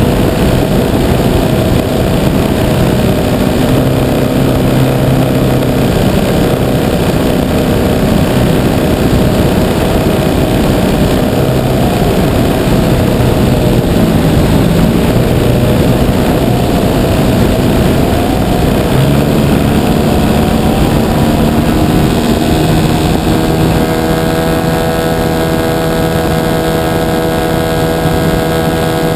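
Engine and propeller of a 60% scale RC Piper Cub running in flight, heard from a camera mounted on the plane, with heavy wind rush over the microphone. The engine note wavers, then rises a little and steadies about three-quarters of the way through.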